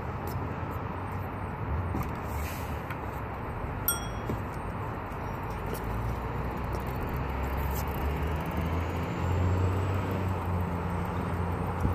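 Steady low outdoor rumble with a single short metallic ping about four seconds in.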